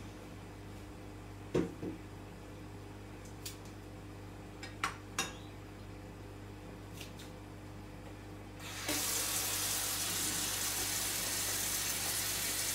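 A few light knocks of kitchenware over a low steady hum, then about three-quarters of the way through a kitchen tap is turned on and water runs in a steady hiss.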